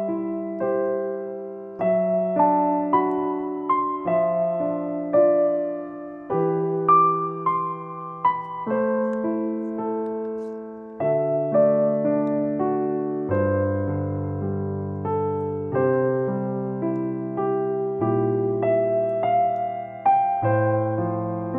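Background music: a slow piano piece, its notes and chords struck and left to ring out.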